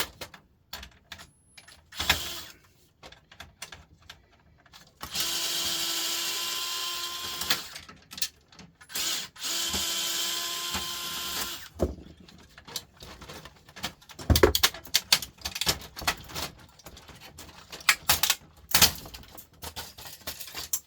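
A power drill-driver runs twice, each time for about three seconds at a steady pitch, backing screws out of a laser printer during its teardown. Sharp clicks and knocks of plastic and metal parts being handled come before, between and after the runs.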